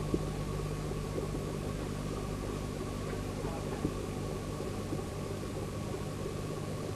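Steady low hum and hiss of room tone, with a faint click just after the start and a few fainter ones later.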